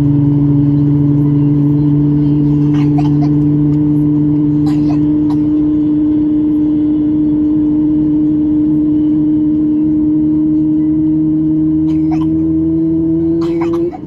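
Boeing 737 heard from inside the cabin on the ground: a loud steady whining hum over a low drone, rising slowly in pitch, then cutting off suddenly near the end and leaving a quieter drone. A few faint clicks are heard over it.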